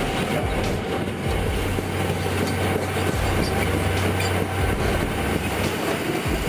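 Caterpillar D11T bulldozer's V12 diesel engine running with a steady low drone under a continuous heavy rumble and clatter.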